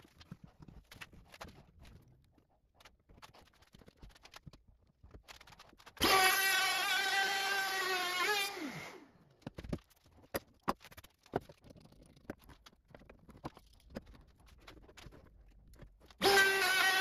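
DeWalt router motor running at high speed for about two and a half seconds while routing an oak ring, then spinning down. Scattered clicks and knocks of clamps and the router being handled follow, and the router starts up again near the end.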